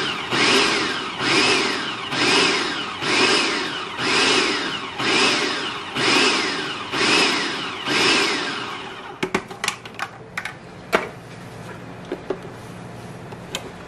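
Food processor pulsed about nine times, roughly once a second, each pulse a short motor whine that rises and falls as the blade chops a mushroom, vegetable and chickpea mixture to a coarse texture. It is followed by a few sharp clicks and knocks as the lid comes off and the plastic bowl is handled.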